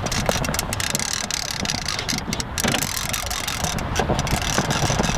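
Wind buffeting the microphone, a steady low rumbling noise, with scattered sharp clicks.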